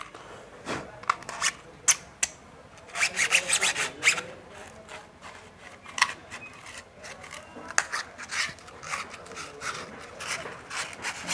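Sandpaper rubbing on a torch's small metal terminal in quick, irregular scratchy strokes, with a few sharp clicks, scouring off dirt and rust that stop the connector from making contact so the battery will not charge.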